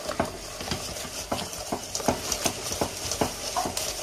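Wire whisk beating mashed potatoes and milk in a metal pot, its wires clicking against the pot's sides with a quick, steady rhythm of about three strokes a second over a soft squelching stir.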